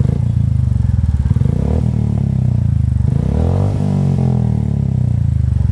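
Royal Enfield Goan Classic 350's single-cylinder engine idling through a newly fitted Globe Exploder aftermarket exhaust. Near the middle it is blipped once, the revs rising and falling, before it drops back to a steady idle.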